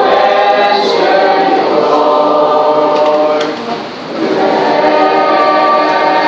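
Mixed church choir of men's and women's voices singing long held chords, with a short break between phrases about three and a half seconds in before the singing picks up again.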